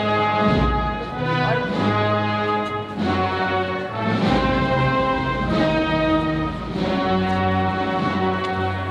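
Brass band playing a slow Holy Week processional march in sustained chords, with a deep drum hit about half a second in and another a little after four seconds.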